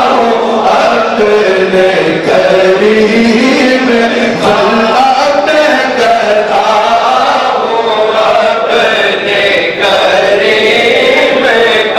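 A gathering of men chanting a devotional refrain together in a sung, melodic style.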